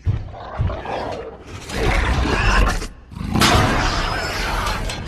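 Movie creature sound effect of the Indoraptor roaring: a couple of low thuds at the start, then two long loud roars, the second starting about three seconds in.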